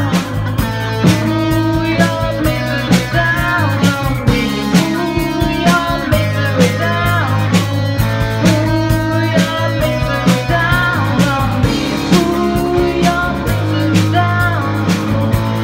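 A woman singing into a microphone over rock accompaniment with guitar and a steady drum beat.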